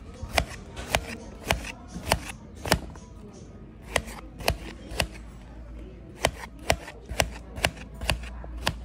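Kitchen knife cutting peeled cucumber on a plate, each cut ending in a sharp tap of the blade on the plate, about two a second with two short pauses.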